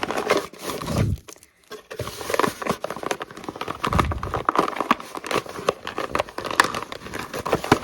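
Plastic toy packaging crinkling and crackling in dense irregular clicks as sticky toy pieces are pulled out of it by hand, with a few dull handling thuds. There is a brief pause about a second and a half in.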